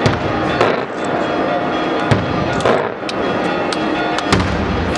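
Fireworks going off in quick succession: sharp bangs and cracks, with several sweeping whooshes between them. Music plays underneath.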